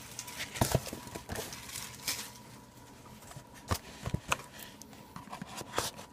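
Trading card box and its packaging being handled: a scattered series of sharp taps and clicks with light rustling in between.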